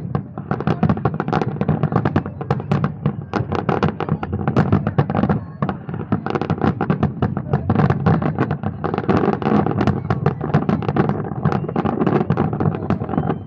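Fireworks display: a rapid, unbroken barrage of bangs and crackles, many bursts a second.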